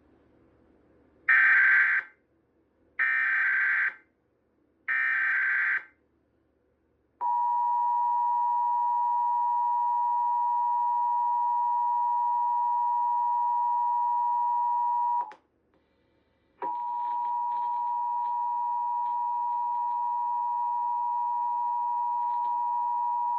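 Emergency Alert System signals: three short, harsh SAME digital header bursts, each under a second. They are followed by the steady two-tone EAS attention signal (853 and 960 Hz), which runs about eight seconds and cuts off. After a pause of a second and a half the attention signal starts again.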